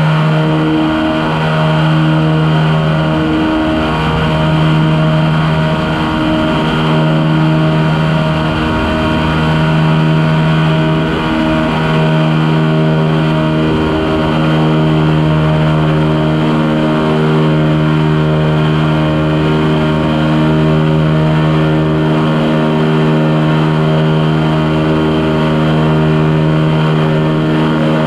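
Quicksilver ultralight aircraft's engine and propeller running steadily in level flight, a constant drone.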